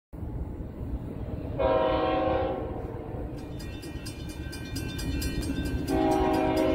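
Air horn of an approaching CSX freight locomotive sounding a blast about a second and a half in that lasts about a second, then starting a second blast near the end, over a low rumble. A fast high ticking, about four to five a second, starts about halfway through.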